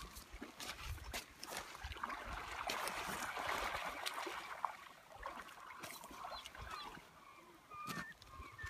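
Gulls calling, short squealing cries that come in during the second half and are clearest near the end, over a scatter of clicks and a rushing hiss that peaks about three seconds in.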